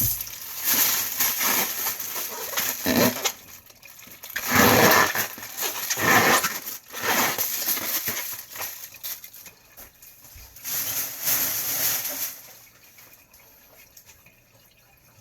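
Kitchen tap water running into a sink in irregular gushes as things are rinsed under it. The water stops a few seconds before the end.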